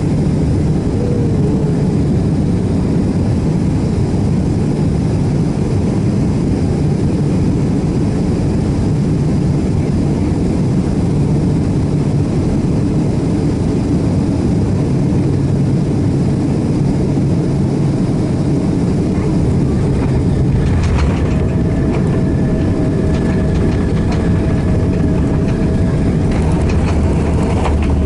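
Cabin noise of a Boeing 767-400ER on final approach: a steady low rumble of engines and airflow. About three-quarters of the way through, the touchdown brings a brief rattle and jolt. A steady whine then sets in, and the rumble grows as the jet rolls out on the runway with its spoilers deployed.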